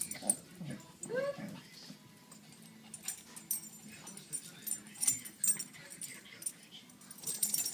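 A Shih Tzu giving one short bark about a second in, then light scuffling and clicking as two Shih Tzus tussle over a plush toy.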